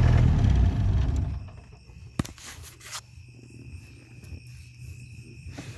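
Kubota V2607 four-cylinder diesel in a Bobcat skid steer idling, then shut off, running down to a stop within about a second. Crickets chirp faintly afterwards, with one sharp click about two seconds in.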